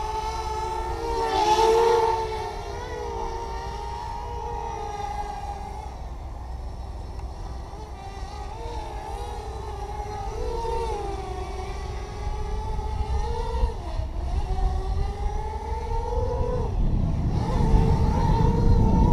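Electric motors and propellers of an OFM Hyper 330 racing quadcopter in flight: a steady whine whose pitch wavers up and down, briefly louder about two seconds in. A low wind rumble grows near the end.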